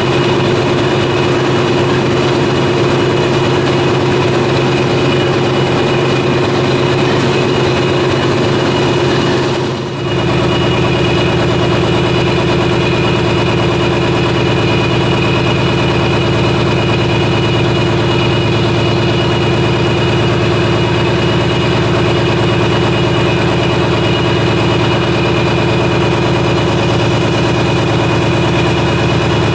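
Large marine diesel engine running steadily, with an even, loud machine hum. A short dip comes about ten seconds in, after which the deep hum is fuller.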